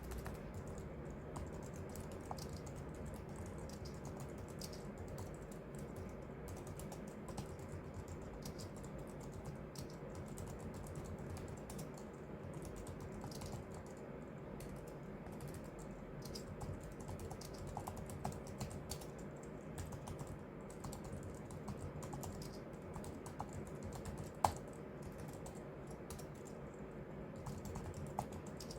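Continuous typing on a computer keyboard: quick, soft keystrokes, with one sharper key clack about two-thirds of the way through, over a faint steady hum.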